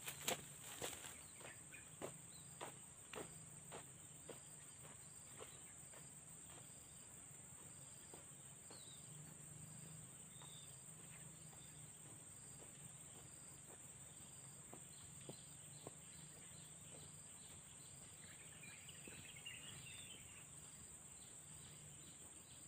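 Faint, steady high-pitched insect drone with a regular string of short chirps from crickets or similar insects. A few soft footsteps or knocks sound in the first seconds and fade away.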